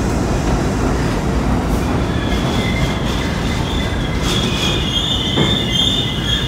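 NYC subway C train of R32 cars running into the station and slowing: a steady rumble of wheels on rail, with a high wheel squeal coming in about two seconds in as it brakes.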